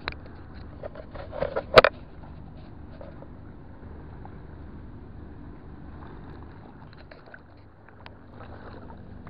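Low, steady engine hum, with a few handling rustles and one sharp knock about two seconds in.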